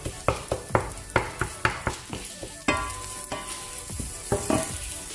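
Wooden spoon chopping and stirring scrambled egg in a non-stick frying pan: a quick run of knocks against the pan, thinning out about halfway, over a faint sizzle.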